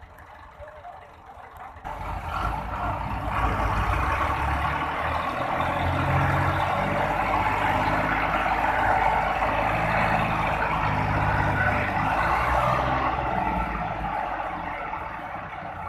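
Diesel tractor engine revved up hard about two seconds in and held at high revs under heavy load as it strains to pull out of mud, its pitch wavering, then easing off near the end.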